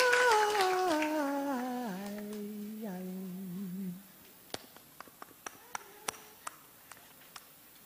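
A male singer's wordless note stepping down in pitch over about two seconds, then held low with a slight waver until it stops about four seconds in. After that it is nearly quiet, with a few faint scattered clicks.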